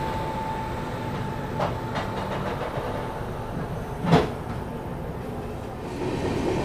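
Passenger train coach rolling slowly out of a station: a steady rumble of wheels on the track, with a few clicks over rail joints and one louder clunk about four seconds in. A faint steady whine sounds over the first two seconds.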